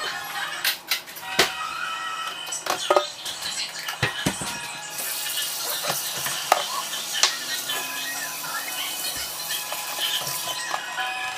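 Kitchen faucet running into the sink from about five seconds in, as a steady hiss of water, after a few sharp clinks of dishes and utensils being handled at the sink. Background music plays throughout.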